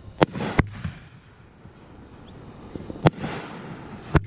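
Fireworks going off: four sharp bangs, two close together near the start and two more about three and four seconds in, each followed by a brief hissing trail.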